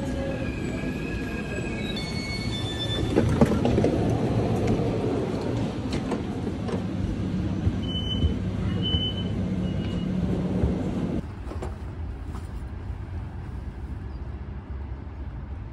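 A train running at a station, its rumble carrying high whining tones through the first few seconds, with a few short high beeps about eight seconds in. The rumble drops away after about eleven seconds, leaving quieter outdoor ambience.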